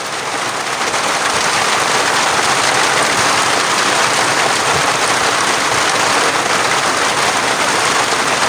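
Steady rain hissing, swelling over the first second or so and then holding at a loud, even level.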